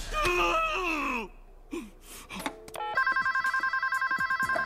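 Telephone ringing with a fast electronic warble, a two-tone trill that starts about three seconds in and lasts about a second and a half. A voice is heard in the first second.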